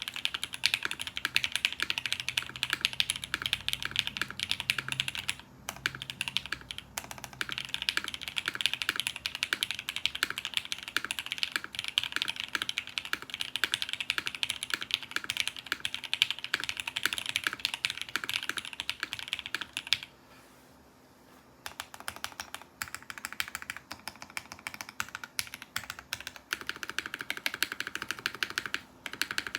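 Typing on a custom 60% mechanical keyboard with lubed Gateron Black Ink linear switches, a UHMWPE plate, GMK keycaps and a polycarbonate case with a copper bottom. A dense, fast run of keystrokes pauses briefly about two-thirds of the way through, then the typing resumes.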